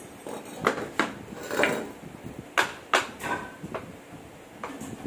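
Irregular metal clinks and knocks, about eight in a few seconds, as a Toyota Innova drive shaft is lifted and worked by hand at its joint.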